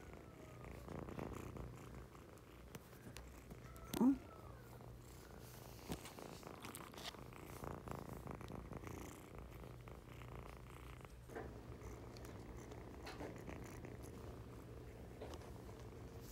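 Kitten purring close to the microphone, a steady low rumble throughout, with scattered small bumps and rustles as the kittens move against the phone and a brief louder noise about four seconds in.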